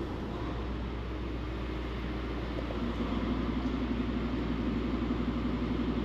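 Passenger train's engine idling while it stands at the platform: a steady low hum that swells about three seconds in into a louder, pulsing low note.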